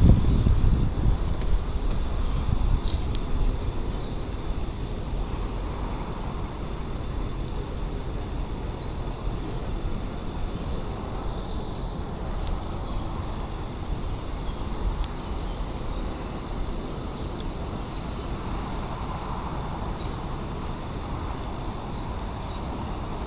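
An insect chirping in a fast, even rhythm of high notes, over a low rumble of wind on the microphone that is strongest in the first couple of seconds.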